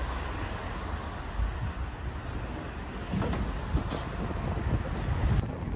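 Steady low rumble of street traffic, with a few light knocks from about three seconds in.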